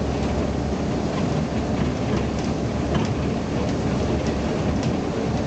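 BMC Belde 220-SLF city bus on the move, heard from on board: a steady low rumble of engine and road, with scattered light rattles.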